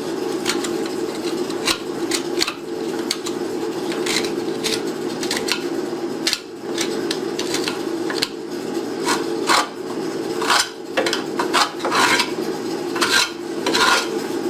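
Irregular metallic clinks, taps and short scrapes as drum-brake parts and hand tools are handled and rubbed clean, over a steady hum.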